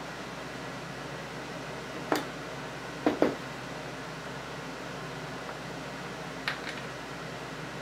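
Small steel gun parts and hand tools clicking as they are set down and handled on a workbench: a single click about two seconds in, two quick ones about a second later, and one more near the end, over a steady background hiss.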